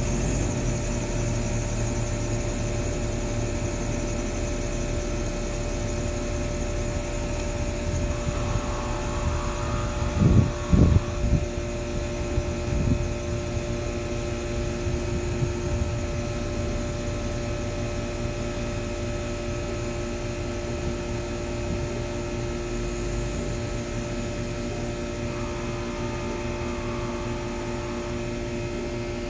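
A machine running with a steady, unchanging hum, with a cluster of loud knocks about ten seconds in and a few smaller ones a couple of seconds later.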